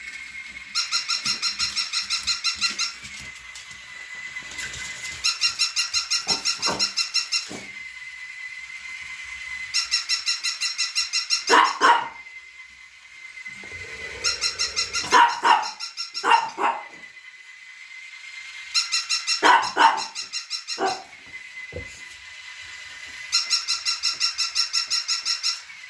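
Dog barking a few times amid regular two-second bursts of rapid, evenly spaced electronic chirping that repeat about every four to five seconds, over a faint steady high whine.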